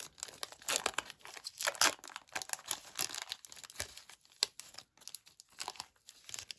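A trading card pack's wrapper being torn open and crinkled in the hands: a rapid, irregular run of crackles and rustles.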